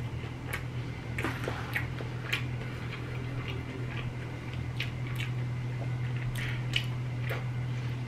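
Close-miked chewing of a mouthful of Cajun boneless chicken wing with dressing: wet, squishy mouth sounds and scattered small clicks and smacks, over a steady low hum.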